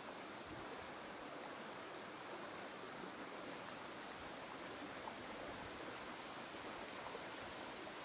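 Steady rush of a shallow stream running over rocks.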